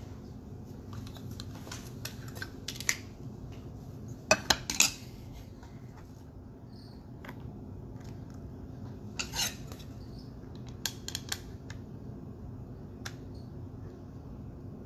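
Small plastic clicks and rustles of a trading card being handled and fitted into a magnetic card holder. A quick run of three sharp clicks comes about four and a half seconds in, with more clicks a few seconds later.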